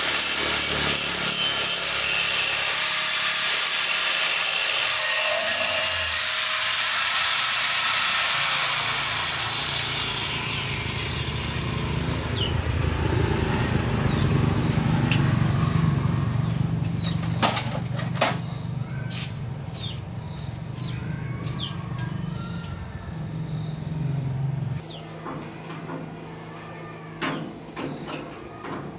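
An abrasive power tool works with a harsh rasping noise for about ten seconds, then winds down. After it, a low hum continues with scattered knocks and clicks.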